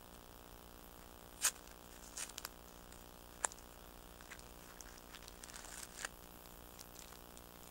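A small tea packet in a clear plastic wrapper being handled: a few sharp clicks and taps, the loudest about one and a half seconds in, with light crinkling of the plastic.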